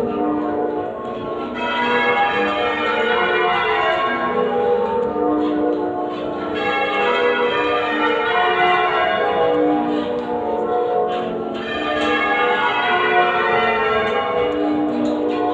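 Change ringing on a ring of eight church bells cast by Mears & Stainbank in 1952 and tuned in F#, rung half-muffled so that alternate rows sound open and then damped. The bells strike one after another in a steady, continuous sequence of overlapping tones.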